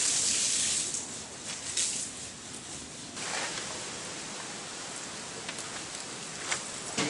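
Whole spices, round dried red chillies and small seeds, sizzling in hot oil in an iron kadai, a steady hiss with a few sharp pops and crackles.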